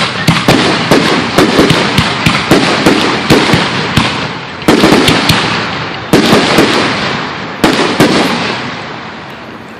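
Aerial fireworks shells bursting in rapid succession, several loud bangs a second with crackling and echo, then a few heavier single bursts before the barrage dies away near the end.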